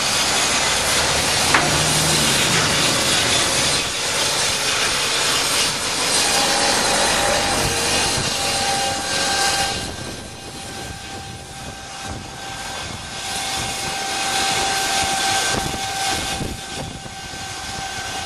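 Steam locomotive 1638, a Southern Railway U class 2-6-0, moving slowly with a loud hiss of steam from its open cylinder drain cocks. The hiss eases about ten seconds in, and a steady high-pitched whine runs through the second half.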